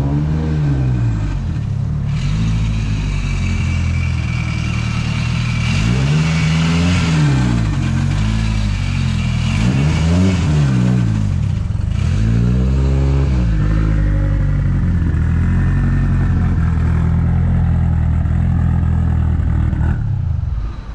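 Mitsubishi Lancer Evolution VIII's turbocharged 4G63 four-cylinder engine running as the car is driven in, its revs rising and falling a few times, then switched off near the end.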